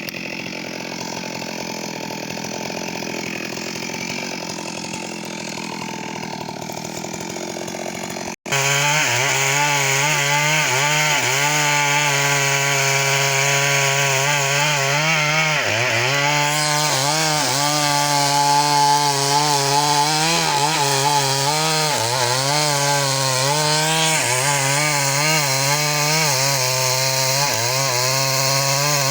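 Stihl MS 382 two-stroke chainsaw cutting mahogany: fainter at first, then after an abrupt break about eight seconds in, louder and closer, its engine pitch repeatedly dipping and rising again under load in the cut.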